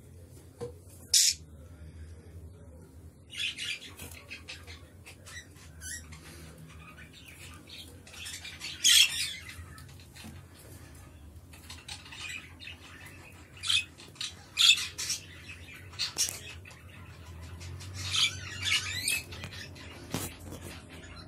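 Budgerigars chirping and squawking: short, sharp, high calls at irregular intervals, the loudest about a second in and twice more midway, and near the end a run of quick wavering chatter.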